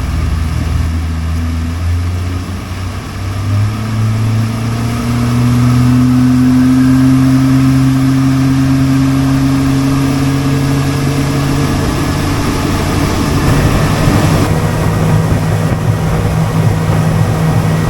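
Small boat's outboard motor throttling up a few seconds in, its pitch rising, then running steadily at cruising speed.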